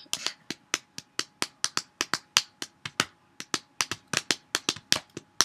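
Fingers snapping in a rapid, uneven run of sharp clicks, about eight a second.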